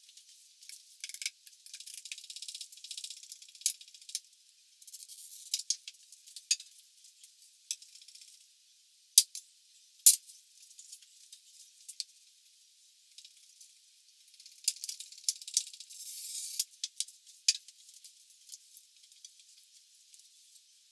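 Glass being scored and handled on a table: short stretches of thin, high scratching from a glass cutter drawn across a 1/8 inch mirror, among scattered sharp clicks of glass, tool and wooden straight edge or dowel being set down, the loudest a pair of clicks about nine and ten seconds in.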